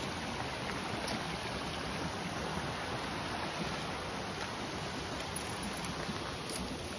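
Shallow creek water running steadily over rocks and shale.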